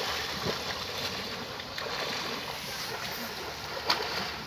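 Splashing and sloshing of a person swimming through a half-frozen river, breaking thin ice as he goes, with one sharper splash or crack about four seconds in.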